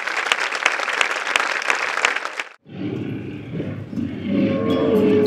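Audience applause, a dense crackle of clapping, cut off abruptly about two and a half seconds in. A low rumbling musical soundscape follows, with a single held tone coming in near the end.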